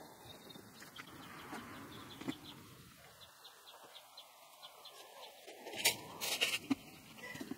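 Faint background with a few light clicks, then, about six seconds in, sand poured from a bucket into a wheelbarrow, heard as several short, loud hissing rushes.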